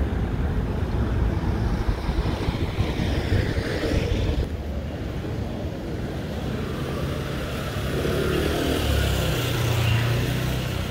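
City street traffic: road vehicles running past in a steady rumble. A low engine hum swells about eight to ten seconds in as a vehicle goes by.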